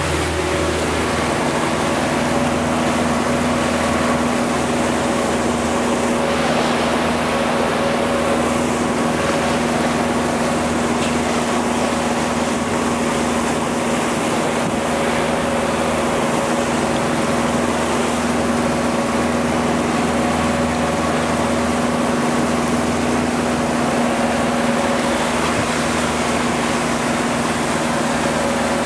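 A boat's outboard motor running at a steady cruising speed, a constant drone over the rush of water from the hull and wake.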